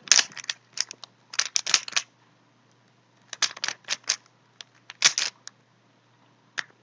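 A 3x3 Rubik's cube being turned quickly during a speedsolve: flurries of plastic clicking as the layers snap round, broken by short pauses, the longest about two seconds in.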